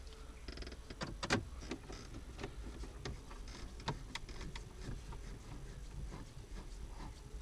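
Screwdriver turning the mounting screws of a car's Android head unit in the dash: faint, scattered clicks and ticks of metal on metal, with a sharper click about a second in.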